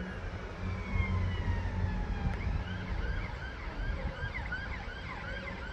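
Emergency vehicle siren: a slow falling wail that switches about two seconds in to a fast repeating yelp, several short rising-and-falling sweeps a second, over a steady low rumble.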